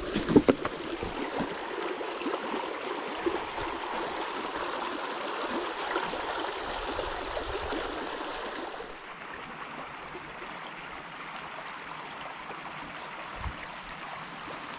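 Shallow river running over stones in small rapids: a steady rush of water that drops quieter about nine seconds in. A few sharp knocks near the start.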